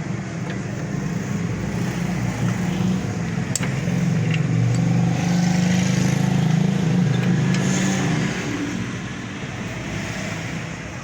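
A motor vehicle engine running steadily, growing louder through the middle and easing off toward the end, with a few sharp clicks over it.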